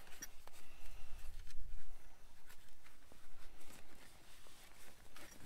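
Faint rustling and light clicks of a nylon shoulder-harness strap being handled and pulled through its adjuster buckle.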